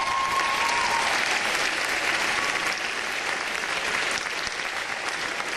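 Audience applauding in a hall, with two rising whistles held over the first second.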